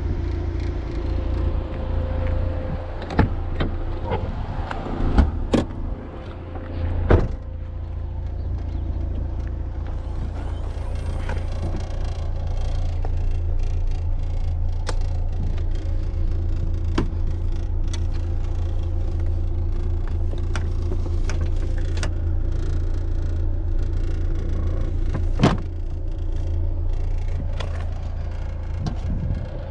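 Fiat Seicento Sporting's 1.1-litre four-cylinder petrol engine running at a steady pace while driving, over a constant deep road and tyre rumble inside the cabin. A few sharp knocks or clicks come through, several in the first seven seconds and one later on.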